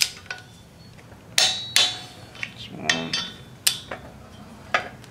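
Torque wrench ratcheting and clicking on the bolts of a Subaru EJ25 connecting rod cap. There are several sharp metallic clicks with a short ring, spaced irregularly, as the bolts are brought up toward 34 ft-lb a little at a time.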